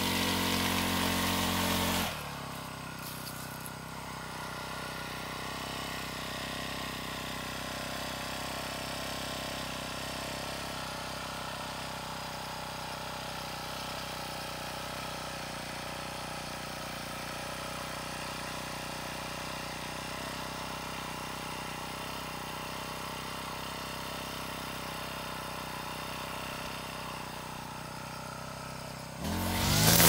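Petrol brush cutter engine running loudly, dropping abruptly to a quieter steady running about two seconds in, then rising to full loudness again just before the end.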